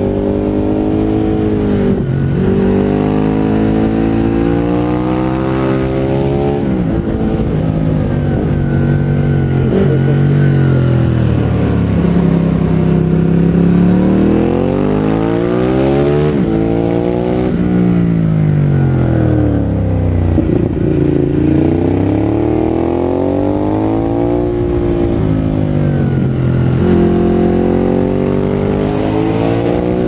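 Ducati 821 Hypermotard SP's L-twin engine through a Termignoni exhaust, heard from on the bike, repeatedly climbing and falling in pitch as the rider accelerates and backs off through the bends, with several quick gear changes. Steady wind rush underneath.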